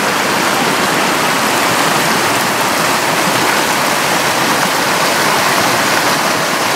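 Storm runoff rushing through a flooded, washed-out roadside channel: a steady, loud rush and splash of fast-flowing water.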